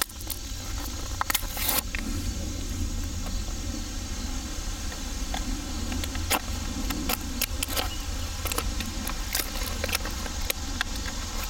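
Packaging being handled as a headlamp is unpacked: a string of sharp clicks and crackles over a steady low rumble.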